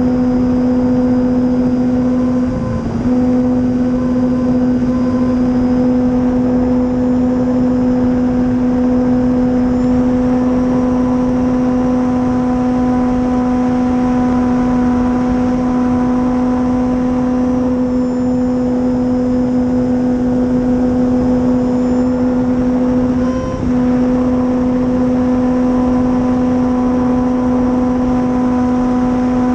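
Dualsky 480 brushless electric motor and propeller of an RC warbird running at steady throttle, a constant whine with wind rush, heard from the onboard camera. The pitch dips briefly twice, about three seconds in and again about twenty-three seconds in.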